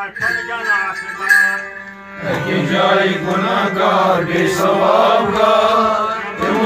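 Melodic chanting over a steady drone, growing fuller and louder about two seconds in.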